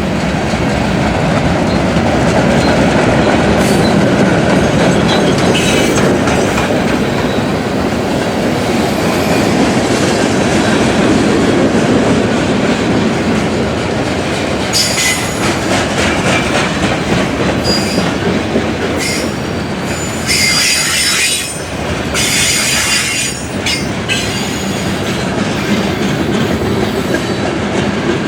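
Freight train cars rolling past with a steady rumble and wheel clatter. From about halfway through come several spells of high-pitched steel wheel squeal.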